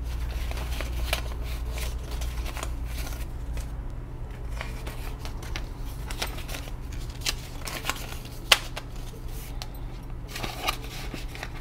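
Paper dollar bills rustling and flicking as they are handled and sorted by hand, with scattered light taps and one sharper click a little past halfway.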